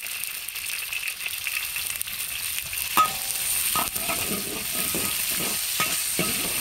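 Chili bean paste frying in hot oil with ginger and onion in a wok, sizzling steadily. From about three seconds in, a metal wok spatula scrapes and clanks against the wok with each stirring stroke.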